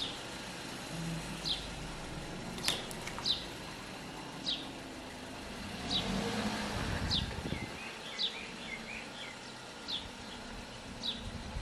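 A bird repeatedly gives short, sharp chirps, about one a second, over the low steady running of a Toyota Corolla's engine, which grows louder for a couple of seconds around the middle.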